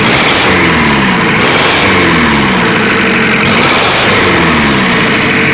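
Freshly rebuilt Asia Topic 2.2 R2 four-cylinder diesel engine (new rings and bearings, reworked head) running on a floor test stand with no radiator or coolant. It runs steadily with a falling tone that repeats several times: a nice, even rumble with no smoke.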